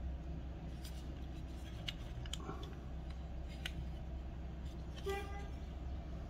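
Faint clicks and taps from die-cast toy cars being handled, over a steady low hum, with one short pitched tone about five seconds in.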